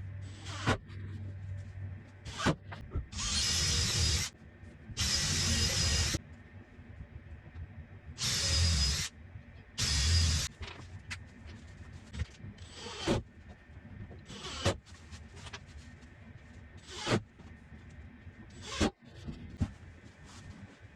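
A power drill running in four short bursts of about a second each, a steady whine over a low hum, followed by scattered light clicks and knocks.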